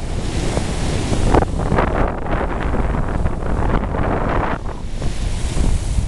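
Rough storm surf breaking and washing against a rocky shore, swelling louder for a few seconds in the middle as a wave comes in. Strong wind buffets the microphone with a constant low rumble.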